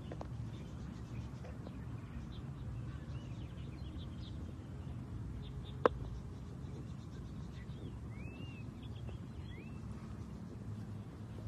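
Birds chirping in short calls and rising sweeps over a steady low rumble, with one sharp click about six seconds in.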